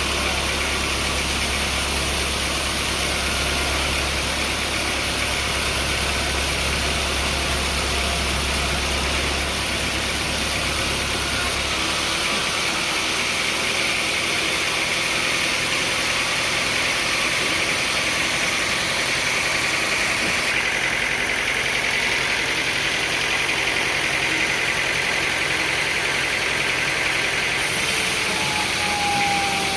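An engine running steadily under a dense mechanical noise. The low hum underneath drops away about twelve seconds in.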